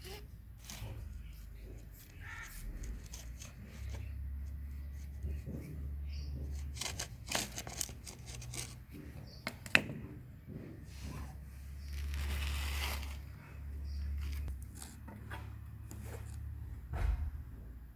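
Scattered clicks, knocks and scraping from handling plumbing pipe and fittings, with one longer scratchy stretch about twelve seconds in, over a steady low hum.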